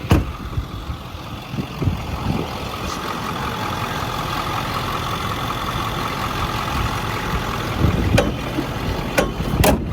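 Truck engine idling steadily, with a few sharp knocks or clunks near the end.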